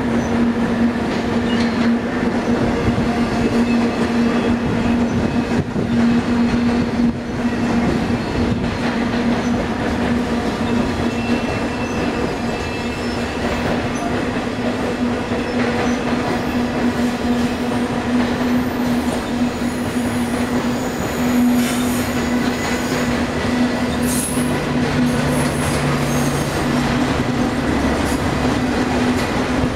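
Double-stack intermodal freight train's cars rolling past at speed, wheels running on the rails with a constant rumble and a steady droning tone underneath.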